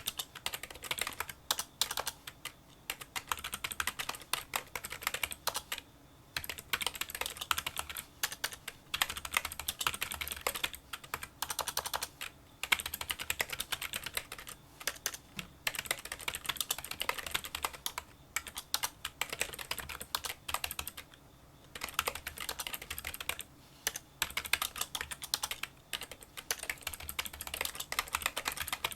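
Fast touch-typing on a Kinesis Freestyle Solo split keyboard: quiet, small clicks from its membrane keys in rapid runs, broken by short pauses.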